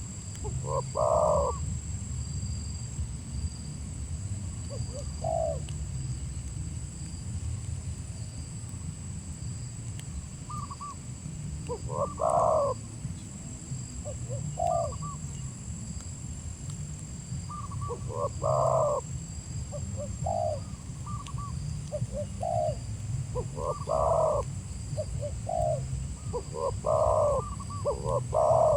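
Spotted dove (tekukur) cooing: a series of short coo phrases every one to three seconds, coming closer together near the end.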